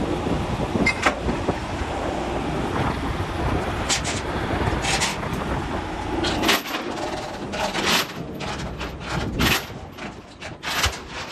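Large crawler bulldozer running with a deep, steady rumble, its steel tracks clanking and squealing. About six and a half seconds in the rumble drops and a quick run of sharp metallic clanks and squeaks follows.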